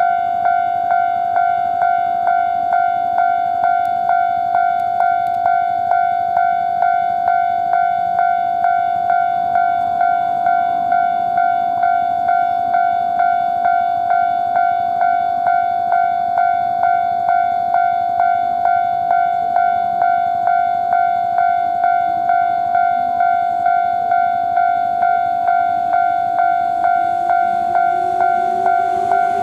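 Japanese railway level-crossing warning bell ringing steadily, an even electronic ding about twice a second. Near the end an approaching electric train comes in under it with a rising hum.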